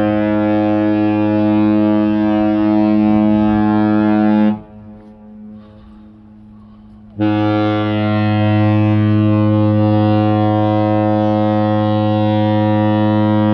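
Cruise ship horns sounding two long, deep blasts: the first lasts about four and a half seconds, and the second starts about seven seconds in and runs on to the end.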